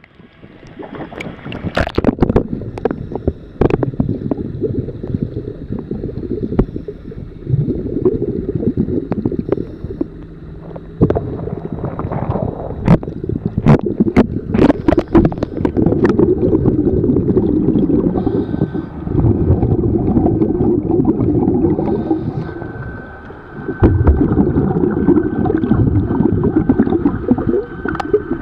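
Underwater recording of a scuba diver's exhaled bubbles rumbling and gurgling in surges a few seconds long, with sharp clicks and knocks through the first half. A faint steady whine sits in the background near the end.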